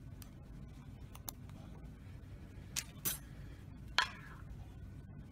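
A few small, sharp clicks and taps from handling the glass draft-shield door of an Ohaus Pioneer analytical balance. The loudest comes about four seconds in and has a short glassy ring. A faint steady room hum lies underneath.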